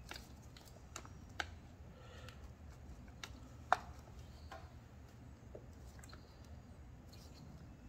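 Scattered light clicks and taps of metal engine parts being handled and worked loose on a Homelite leaf blower engine, with one sharper click about three and a half seconds in, over a low steady hum.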